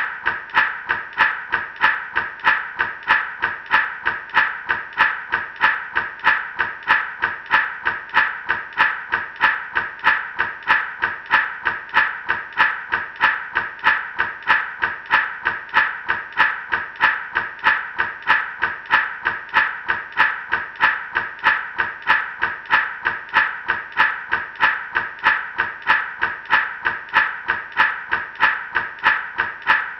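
Gourd rattle (shaman's maraca) shaken in a steady, even rhythm of about three shakes a second, the seeds inside giving a bright rattle.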